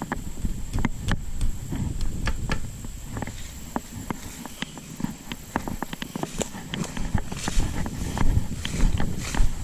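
A person moving about: irregular crunching steps and sharp knocks, over a steady low rumble.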